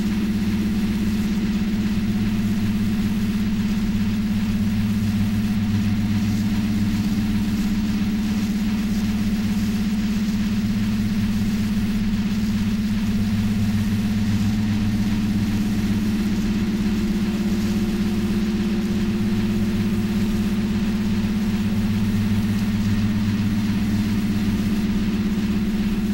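Steady low droning hum, environmental and industrial sound picked up through a window and run through a mixer oscillator and a Korg analog synthesizer. It is engine-like and unbroken, its level flat throughout.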